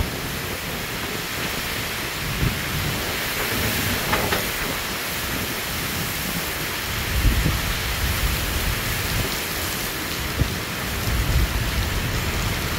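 Torrential wind-driven rain of a severe thunderstorm pouring down steadily, with strong wind gusts rumbling across the microphone on and off, heaviest about seven seconds in and again near the end.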